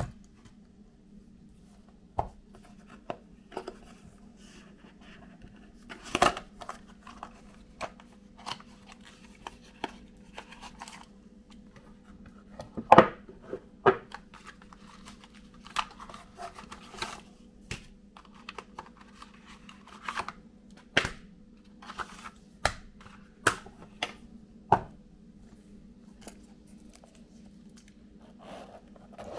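Packaging of a pair of smart glasses being handled and opened by hand: scattered clicks and taps with short tearing and scraping sounds, the loudest cluster about thirteen seconds in, over a faint steady hum.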